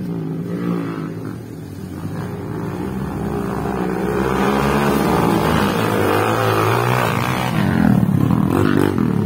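Dirt bike engines revving and changing pitch as the racers ride along the track, getting louder from about two seconds in as the bikes come closer.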